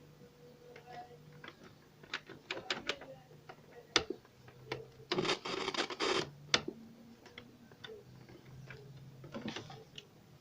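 Irregular clicks and taps of small parts being handled during work on a cassette player's tape transport mechanism, with a denser scraping rattle about five seconds in, over a faint steady low hum.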